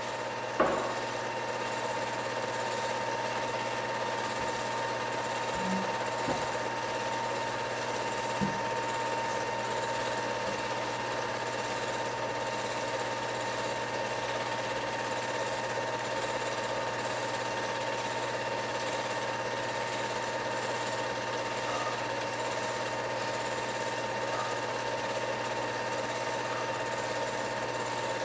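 Film projector running: a steady mechanical clatter from the film mechanism over a constant hum and a steady high tone. A single sharp click sounds about half a second in.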